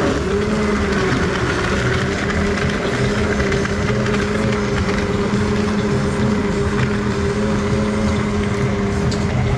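A small motor hums at a steady, constant pitch over busy background noise.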